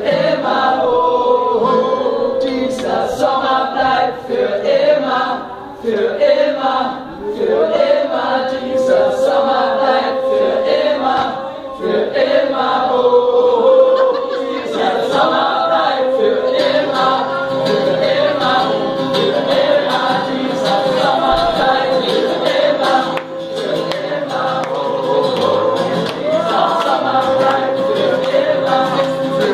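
A crowd of voices singing along together in a live room, over a strummed acoustic guitar.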